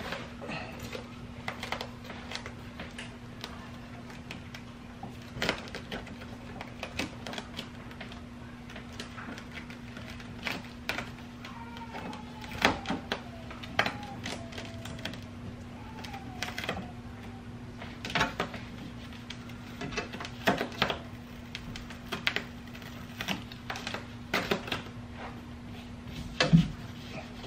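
Irregular rustling, crinkling and light knocks of hands working at a car's bare metal roof, handling and pressing self-adhesive foam insulation liner, with a louder knock near the end. A steady low hum runs underneath.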